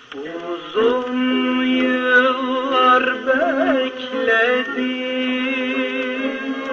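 Turkish art music: an instrumental passage with a sustained, ornamented melody line that wavers in pitch over a steady accompaniment. It swells in about a second in.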